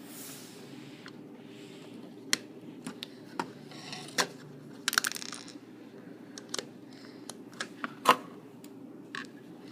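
Small plastic building-block pieces clicking and tapping as they are handled and fitted together, in a dozen or so scattered sharp clicks, with a brief rustle near the start and a short cluster about five seconds in.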